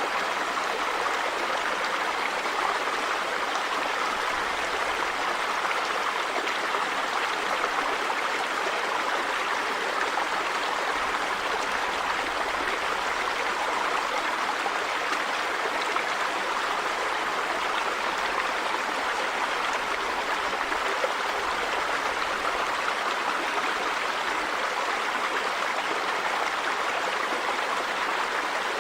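River water running steadily over rocks, a constant rushing and babbling with no change in level.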